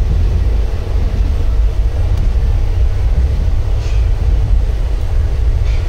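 Steady low rumble inside an Indian Railways sleeper coach, the sound of the railway carriage running.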